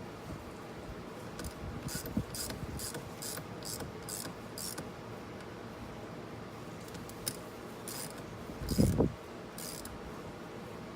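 Ratchet wrench tightening the nuts on battery terminals, clicking in a run of quick short strokes, about three a second, and again a little later. A dull thump about nine seconds in is the loudest sound.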